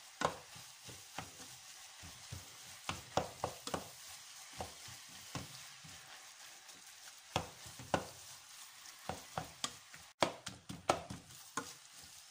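Shredded cabbage frying in a stainless steel pot with a steady sizzle, stirred by a wooden spoon that knocks and scrapes against the pot at irregular intervals.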